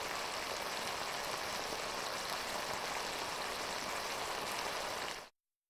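Steady hiss of room ambience with no distinct events, cutting off suddenly near the end.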